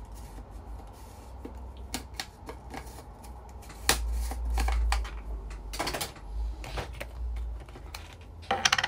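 Scattered light clicks and taps of a makeup powder brush and a small powder jar being handled, with a dull bump about four seconds in.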